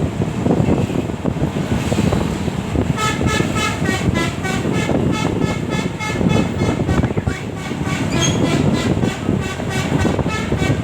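Bus telolet horn playing a quick pulsing multi-note tune of about four toots a second. It starts about three seconds in and stops near the end, over a steady low rumble of traffic and wind.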